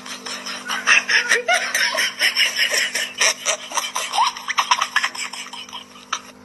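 People laughing in repeated bursts, dying down near the end.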